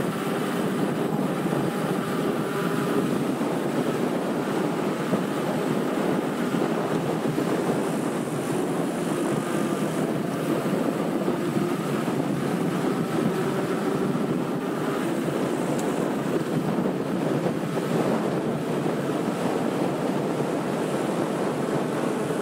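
Steady wind rush buffeting an action camera's microphone, mixed with the rolling roar and faint hum of mountain-bike tyres on asphalt during a fast downhill run.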